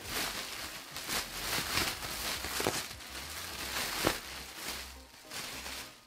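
Clear plastic wrapping being handled and pushed aside: an irregular crinkling and rustling that dies down near the end.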